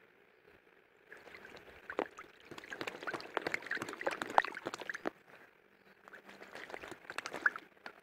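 Australian magpie bathing in a shallow puddle, beating its wings in the water and splashing. Two bouts of splashing: one starting about a second in and lasting about four seconds, a shorter one starting about six seconds in.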